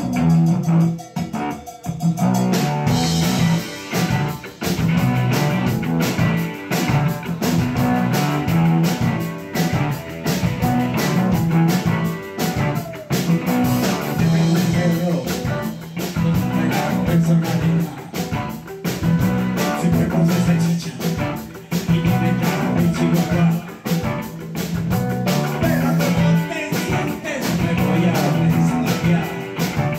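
A live new wave rock band playing a song with a steady driving beat: electric guitars, bass, synthesizer and drum kit, with a male singer's voice. The opening bars are thinner, and the full band fills in about two and a half seconds in.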